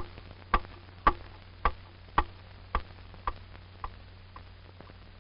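Steady mechanical ticking, a little under two ticks a second, like a metronome or clock, growing fainter and stopping about four and a half seconds in.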